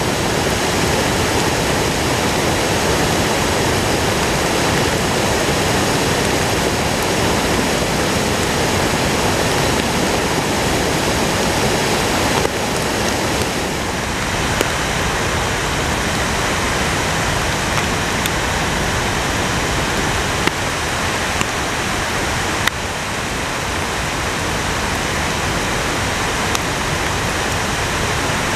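Flood-swollen, muddy creek rushing over rocks: a loud, steady rush of storm floodwater. The sound shifts slightly about halfway through.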